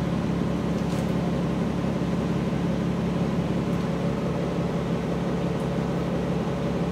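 Steady low mechanical hum with a constant hiss underneath, unchanging throughout.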